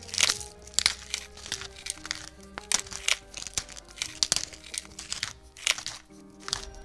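Pepper mill being twisted by hand, grinding peppercorns in a run of short, irregular grinding strokes, about two or three a second, over background music.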